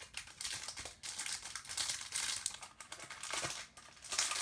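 Foil Pokémon booster pack wrapper crinkling as it is handled, rustling on and off.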